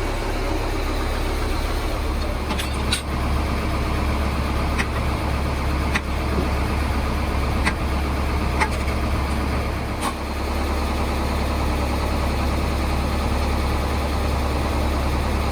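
An engine idling steadily, with a few light clicks and taps over it.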